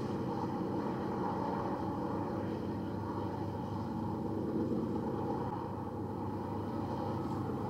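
Diesel-electric freight locomotives running steadily under heavy load, with loaded coal trains slowly climbing a 1% grade, mixed with the rumble of loaded coal cars rolling past on the rails. A steady, even hum with no changes.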